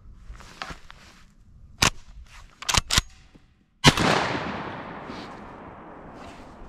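A shotgun fired close by, one loud blast about four seconds in whose echo rolls and fades over the next couple of seconds. A few sharper cracks come about a second before it.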